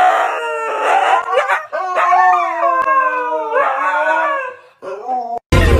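Husky howling in a string of long, wavering howls that glide up and down in pitch, breaking off shortly before the end.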